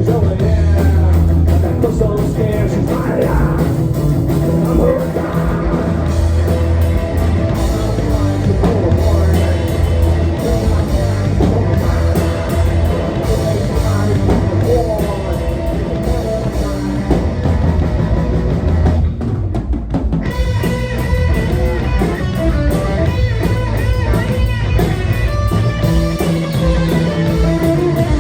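Live rock band playing: electric guitar, bass and drum kit, with a brief break in the cymbals about two-thirds through.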